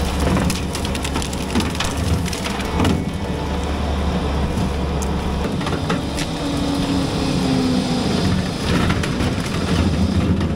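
Skid steer running with its hydraulic brush-cutter attachment spinning, driving through undergrowth as brush and small saplings crunch and snap under the deck. The machine's deep low note gives way about halfway through to a higher hum.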